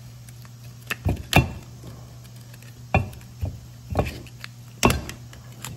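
Screwdriver prying between a rusted brake pad and the pistons of an original 1968 Camaro four-piston disc brake caliper: a series of sharp metallic clicks and knocks, about six, as the tool bites and slips against the pad and caliper, over a steady low hum.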